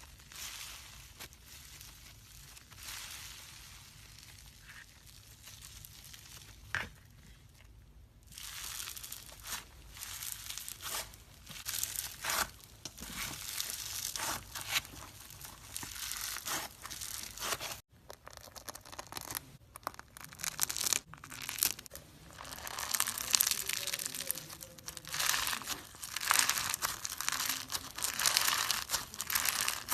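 Crunchy slime being squeezed and pressed, giving dense crackling and crinkling. It grows louder about a quarter of the way in and is loudest near the end.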